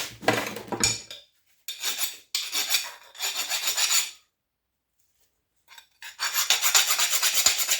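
Rough rasping of metal scraping on metal, in three bursts of about half a second to two seconds with pauses between, as a brass fitting is worked loose from scrap.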